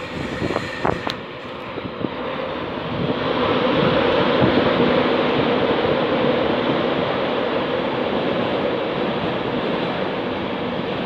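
An LNER InterCity 225 train, a rake of Mark 4 coaches led by its driving van trailer, running past on the line: a steady noise of wheels on rails that swells about three seconds in and stays loud. A few sharp clicks come in the first second.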